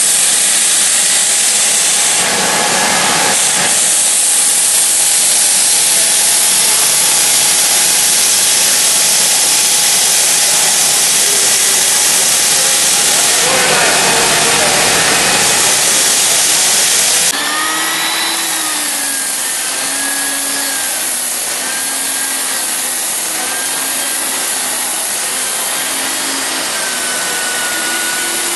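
Hardwood floor sanding machine running with coarse 40-grit paper, stripping the old finish down to bare wood; a pretty loud, steady rush of noise. About two-thirds of the way through it changes to a slightly quieter sound with a motor whine that wavers up and down in pitch.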